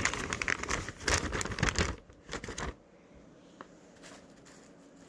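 Plastic vacuum-sealer bag crinkling and rustling as a piece of chicken is pushed into it, stopping a little past halfway.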